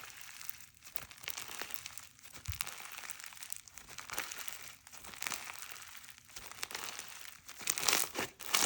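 Slime being mixed and squished by hand: a run of small crackles and popping clicks that get louder and busier near the end.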